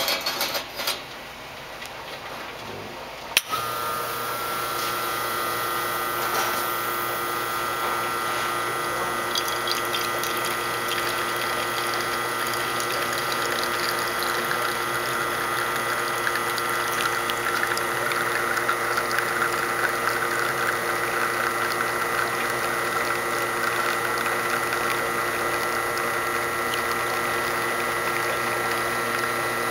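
A few knocks, then an Expobar New Elegance two-group espresso machine's pump switches on with a click about three seconds in and runs with a steady hum while pulling a double shot.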